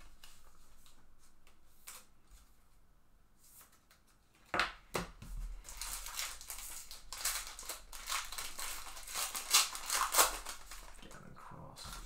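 Foil wrapper of a baseball card pack being torn open and crinkled by hand. Two sharp clicks come about four and a half seconds in, followed by several seconds of dense crackling as the wrapper is pulled apart and crumpled, fading near the end.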